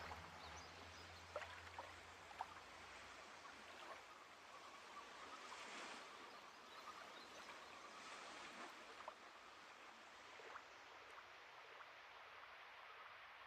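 Near silence: faint steady hiss of background noise with a few soft clicks.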